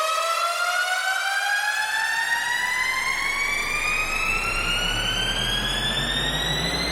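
Electronic riser sound effect: a synthesized tone rising steadily in pitch over a hiss, like a slow siren sweep. About a second and a half in, deep bass notes come in underneath.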